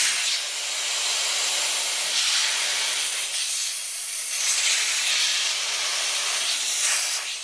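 Compressed air hissing steadily out of a pressurised air compressor tank as it is bled down from about 110 psi, with a brief dip near the end.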